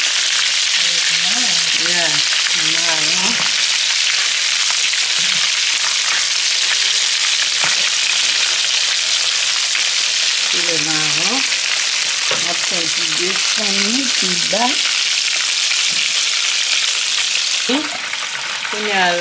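Breaded chicken pieces deep-frying in hot oil, a dense, steady sizzle and crackle of bubbling oil. It eases off near the end.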